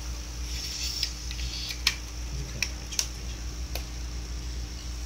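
Air mattress pump running with a steady low hum while it is handled, with four sharp clicks less than a second apart from the knob and plastic casing.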